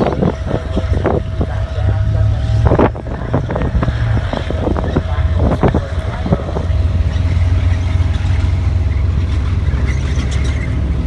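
Low, steady engine rumble from a tank driving toward the crowd. Wind buffets the microphone, and scattered short knocks fall in the first half.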